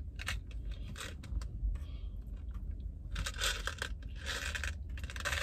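Crinkling and crackling of a thin plastic takeout clamshell being handled, in two short stretches a few seconds in, among scattered small clicks.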